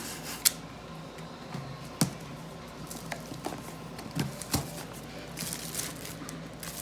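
Tattoo-kit box being opened and handled: scattered light knocks and clicks, with rustling of packaging near the end.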